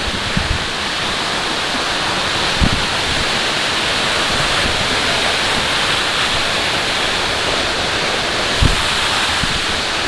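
Waterfall: a steady rush of falling water. A few short low thumps sound over it, once early, once near the middle and once near the end.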